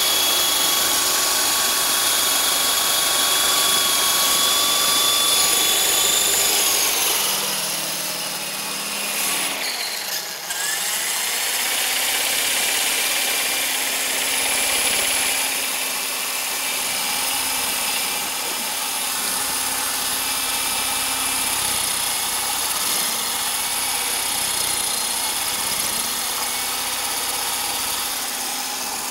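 Electric motors and spinning rotor blades of an Esky Honey Bee CP2 collective-pitch RC helicopter, a steady high whine. About seven seconds in the whine drops as the motor slows, then around ten seconds in it spools back up with a rising whine and runs steady again.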